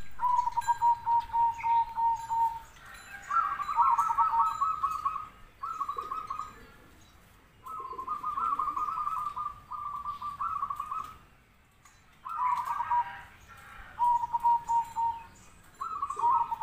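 Zebra dove (perkutut) cooing: several phrases of quick, rattling notes at about one pitch, each a second or two long, with short pauses between them.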